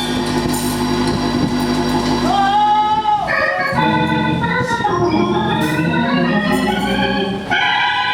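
Organ playing held chords that shift to new chords every second or two.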